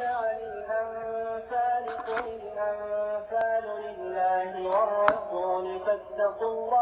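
A man's voice chanting in long, drawn-out melodic notes that glide between pitches, with a sharp click about five seconds in.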